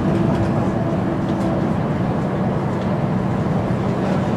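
Diesel engine of a 2005 Mercedes-Benz O530 G Citaro articulated bus idling steadily while the bus stands still.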